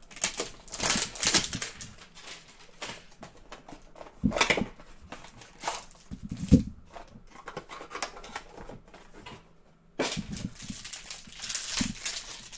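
Crinkling and rustling of a 2019-20 Prizm Mosaic trading-card hanger box and its plastic-wrapped pack being handled and opened by hand. A few dull knocks come in among the crackle, the loudest about six and a half seconds in.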